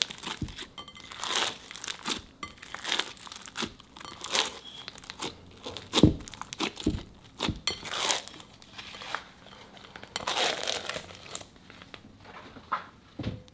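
Slime packed with foam beads and Orbeez being squeezed and kneaded by hand, crackling and crunching in an uneven run of sharp little pops, loudest about six seconds in. It goes quieter near the end.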